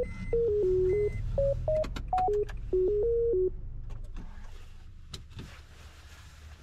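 A simple electronic melody of short beeping pure-tone notes stepping up and down, over a low steady hum. It stops about three and a half seconds in, leaving faint background noise with a few clicks.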